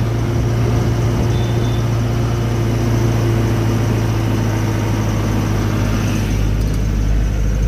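Eicher truck's diesel engine running steadily as the truck drives, a continuous low hum over road noise.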